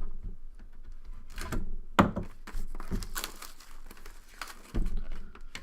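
Plastic wrapping crinkling and tearing as a sealed box of trading cards is unwrapped and opened, with irregular rustles and a sharp click about two seconds in.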